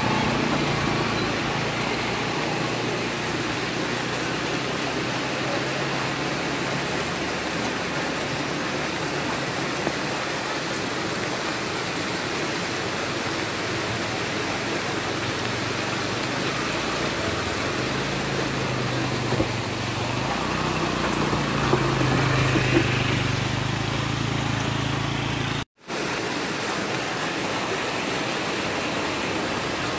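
Steady rushing noise of water, with a low hum that comes and goes twice. The sound cuts out for an instant near the end.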